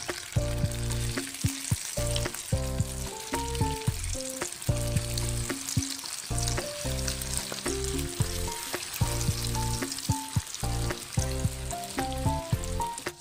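Banana cutlets frying in hot sunflower oil in a pan: a steady sizzle full of small crackling pops. Background music with a stepping melody and a bass beat plays over it.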